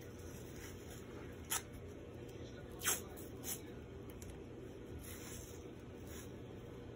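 White athletic tape pulled off its roll and torn during an ankle taping, heard as three short rasps about a second and a half in, near three seconds (the loudest), and just after.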